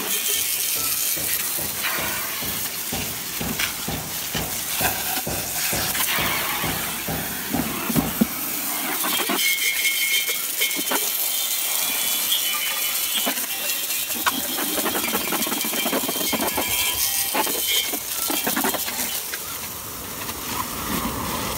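Jet of water hissing steadily as it sprays and splashes against a bare metal Yamaha 125ZR swing arm, washing it down before painting.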